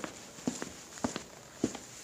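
Steady walking steps: pairs of sharp knocks repeating a little more than once every half second.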